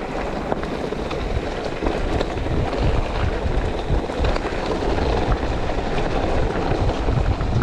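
Wind buffeting the action-camera microphone: a steady, uneven rumble heaviest in the low range, with a few faint clicks.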